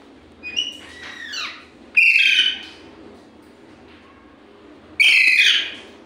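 Indian ringneck parakeets calling: a few shorter chirps and gliding squawks, then two loud, harsh screeches about three seconds apart.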